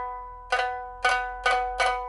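Pipa (Chinese lute) of African rosewood, with a steel first string and copper strings, struck repeatedly on the same ringing chord, four strikes coming closer together. The instrument is being test-played after repair, with a new soundboard and frets.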